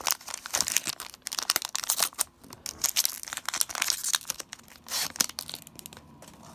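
Foil booster pack wrapper of a Pokémon card pack being torn open and crinkled by hand, a dense crackling for about five seconds that then dies down to faint handling.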